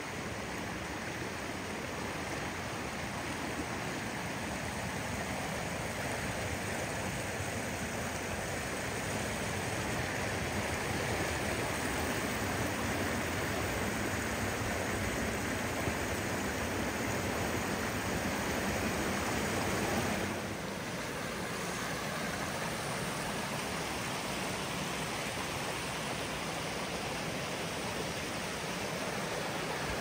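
Steady rushing of a shallow forest stream tumbling over small sandstone steps and rocks. It drops a little in level about two-thirds of the way through.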